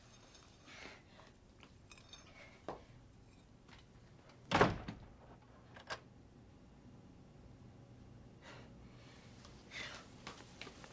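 A single dull thump about halfway through, with a few faint clicks before and after it, over quiet small-room tone.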